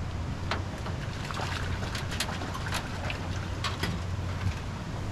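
Small boat's motor running steadily over water noise, with a few scattered knocks.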